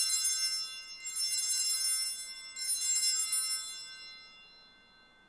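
Altar bell rung at the elevation of the chalice during the consecration at Mass: a ring already sounding, then two more strikes about a second and two and a half seconds in, each ringing on with bright, clear overlapping tones, fading away near the end.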